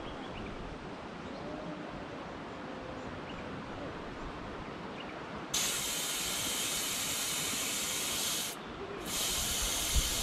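Air hissing out of a 4x4's tyre as it is let down toward 22 PSI for the track. Faint background at first, then a loud steady hiss starts suddenly about halfway through, breaks off for a moment near the end and starts again.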